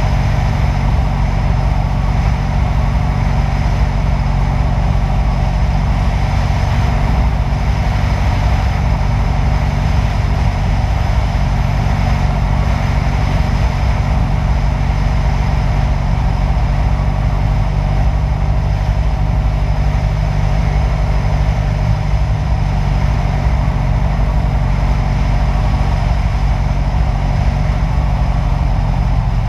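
Light single-engine airplane's piston engine and propeller droning steadily on final approach.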